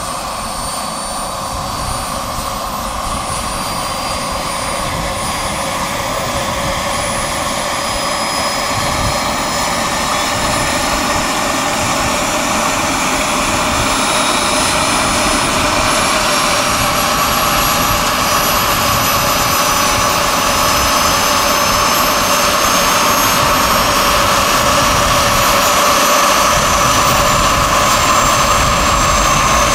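Model turbine engine of a radio-controlled scale Bell 429 helicopter running up on the ground. It gives a high whine that rises slowly in pitch and gets steadily louder as the rotors spin up.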